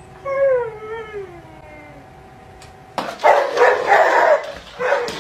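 Siberian husky howling: a drawn-out, pitched howl that falls in pitch, in two phrases over the first two seconds. About three seconds in a louder rough noise starts, with another burst near the end.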